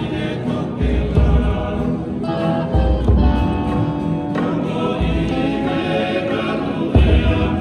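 Group of voices singing a Tongan tau'olunga song in chorus, over a low beat that comes about every two seconds.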